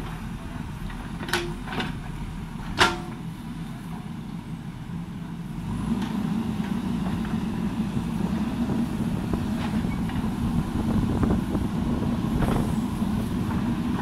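JCB backhoe loader's diesel engine running, with three sharp knocks in the first three seconds, the last the loudest. About six seconds in the engine gets louder and stays up as the hydraulics lift the bucket and swing the boom.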